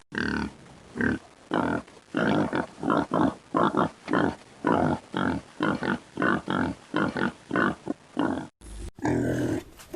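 Pig grunting in a long run of short, rhythmic grunts, about two to three a second, broken off briefly near the end.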